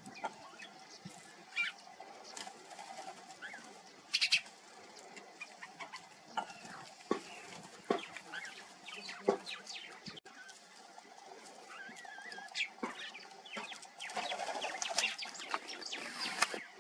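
Birds chirping in the background, with scattered short clicks and crackles and a longer burst of rustling near the end.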